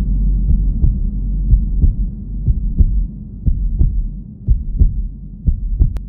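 Wind buffeting the microphone at the seashore: a heavy low rumble with irregular soft thumps, loudest in the first half and easing toward the end.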